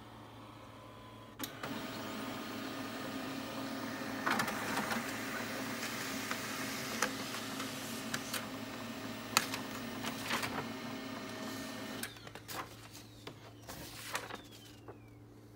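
HP multifunction printer running a copy job. A click about a second and a half in, then its motors run steadily with sharp clicks as the sheet feeds through. The running stops about twelve seconds in, leaving a few scattered clicks.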